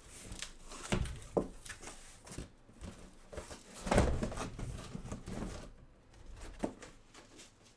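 Cardboard rustling and scraping with a few sharp knocks as a case of trading-card hobby boxes is opened and the boxes are handled; the loudest knock comes about four seconds in.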